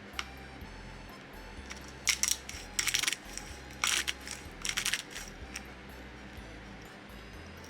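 Soft background music with four short bursts of clinking and clattering: a little over two seconds in, about three seconds in, about four seconds in and about five seconds in.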